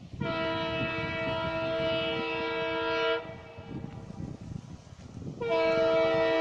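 Multi-tone horn of an approaching EMD WDP4-series diesel locomotive, sounded as two long blasts. The first lasts about three seconds; the second starts about five seconds in and is still sounding at the end. A low rumble runs underneath.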